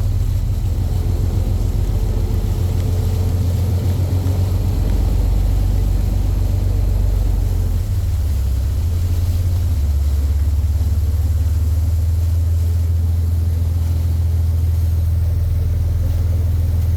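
Whale-watching boat's engines running with a steady low drone, the note shifting slightly about eight seconds in.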